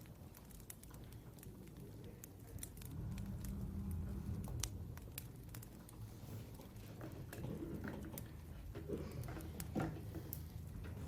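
Faint, scattered light clicks and taps over a low hum, with a few brief soft sounds about two-thirds of the way through.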